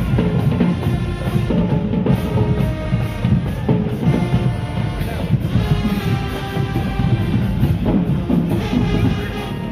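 High school marching band playing: the brass section holds long notes over a driving drumline with heavy bass drum.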